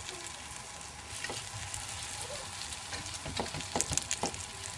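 Batter-coated brinjal slices sizzling steadily as they shallow-fry in oil on a tawa. A cluster of sharp crackles and clicks comes about three seconds in.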